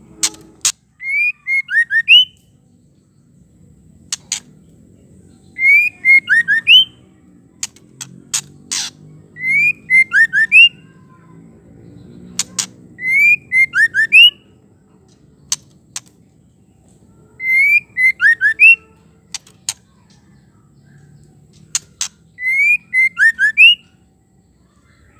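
White-rumped shama calling, given as a female's call: a few sharp clicks, then a quick run of short whistled notes. The same phrase repeats about every four seconds, six times.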